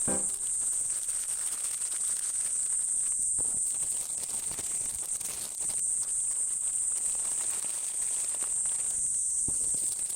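Insects trilling in one steady, high-pitched drone, with faint rustling and small knocks.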